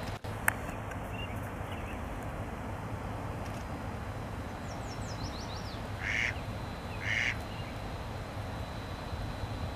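Two short duck quacks about a second apart, just after a bird's quick run of high falling chirps, over a steady low outdoor rumble. A single sharp click about half a second in.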